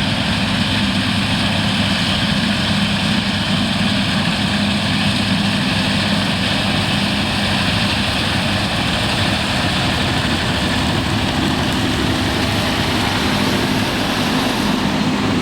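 A 2013 John Deere S690i combine harvester running steadily while cutting barley: a loud, even drone with a low engine hum underneath.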